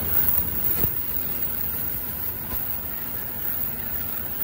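N700-series Shinkansen passing at speed, about 185 km/h, a steady rush of air and wheel noise as its cars stream by close, with a couple of faint clicks.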